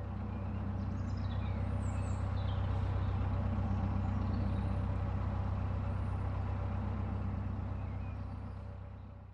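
Narrowboat engine running steadily under way, a low drone that fades out near the end, with faint bird chirps above it.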